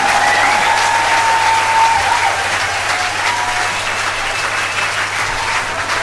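Crowd applauding, with a few drawn-out cheers over the clapping.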